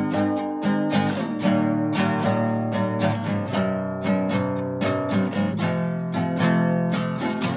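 Acoustic guitar strummed in a steady rhythm, music only.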